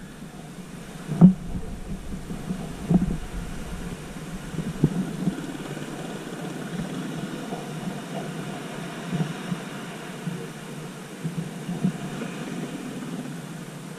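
Elephant seals on a beach making low, throbbing calls, with a few sharp thumps, the loudest about a second in.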